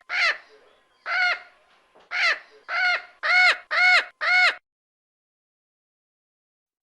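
A bird calling seven times in short, arched calls, the first three about a second apart and the last four quicker, about two a second.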